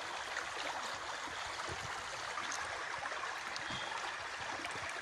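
Small river running over stones: a steady rushing of the current, with a few faint ticks.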